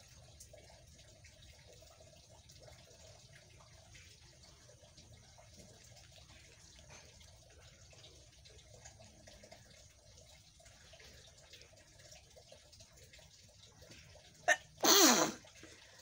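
A woman sneezes once near the end: a quick sharp catch, then a louder burst whose pitch falls.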